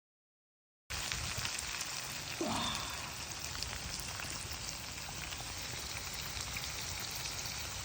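Rain pattering: a steady hiss full of fine drop ticks that starts abruptly about a second in, with one brief rising sound about two and a half seconds in.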